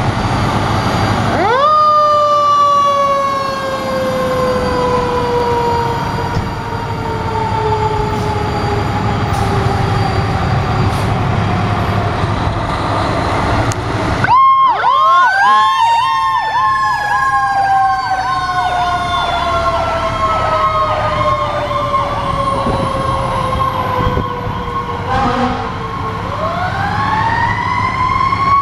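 Fire truck sirens going past with engine rumble beneath: a siren winds up sharply and then slowly winds down over about ten seconds. After a break about halfway, a fast-warbling electronic siren sounds alongside a second slow wind-down, and another siren winds up near the end.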